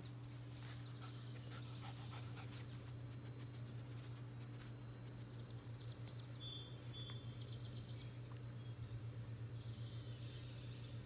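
Outdoor ambience: a steady low machine-like hum that starts to pulse in the second half, with a few short high bird chirps about halfway through and again near the end.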